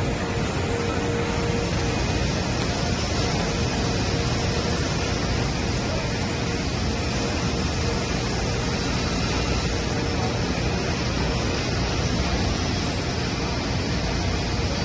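Steady machine noise, an even hiss over a low hum, with a faint steady tone in the first two seconds.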